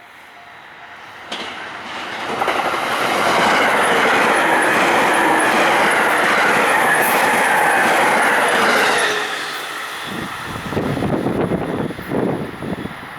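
E651 series electric express train passing close by at speed: the noise builds to a loud roar for about seven seconds, then falls away. In its wake, gusts of wind buffet the microphone.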